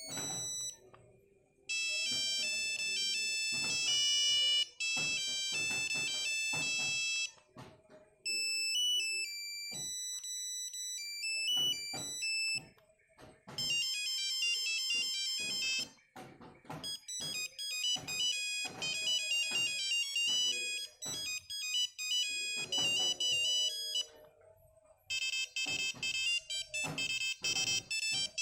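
Nokia 5110 mobile phone playing its built-in monophonic ringtones: about six short beeping melodies one after another, with brief pauses and short clicks between the tunes.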